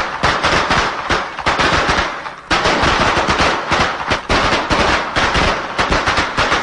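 Fireworks going off: a rapid, irregular run of sharp bangs and crackles, several a second.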